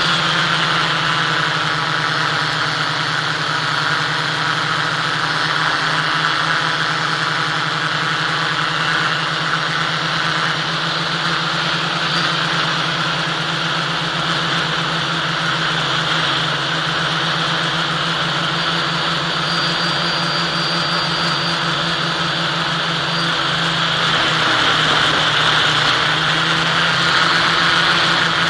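Motor and propeller of an FPV model aircraft in cruising flight, picked up by the onboard camera: a steady droning whine with rushing air, getting a little louder in the last few seconds.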